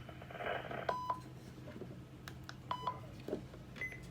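Two short, faint electronic beeps about two seconds apart, with a few soft clicks between them and a brief higher beep near the end, over a steady low hum.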